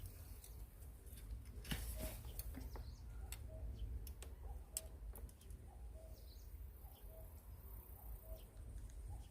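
A bird giving a short, low call over and over, about once a second, with scattered light clicks and a steady low rumble of wind or handling on the microphone.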